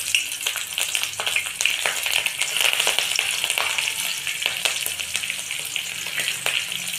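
Chopped garlic and green chillies sizzling in hot oil in a kadai, a steady hiss with many small crackles and clicks as they are stirred.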